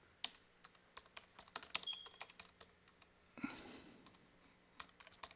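Faint computer keyboard typing: a quick run of light key clicks, a pause a little past the middle, then a few more keystrokes near the end.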